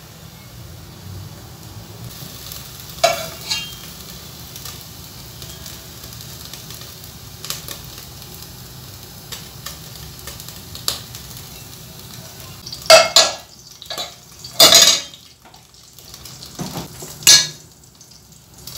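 Kitchen clatter as a cooking pot on a gas stove is readied: a few scattered clicks and knocks, then a burst of loud clanks and scrapes near the end from a knife, a plastic cutting board and utensils striking the pot. A low steady hum runs underneath.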